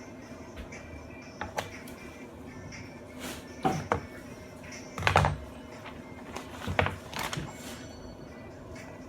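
Toy RC car knocking over bumps on a hard floor: a handful of separate sharp knocks and thumps, the heaviest about five seconds in, over a steady faint hum.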